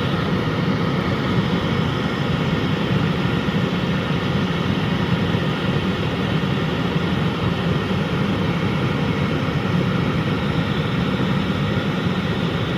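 Chinese diesel air heater running steadily at full speed on its first start: an even rush of combustion and blower fan, rather like a plane on the runway.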